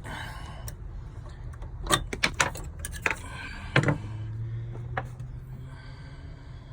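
Handling noise of small metal parts and tools being moved about: several sharp clicks and knocks, clustered about two to four seconds in, over a low steady hum that sets in near the middle.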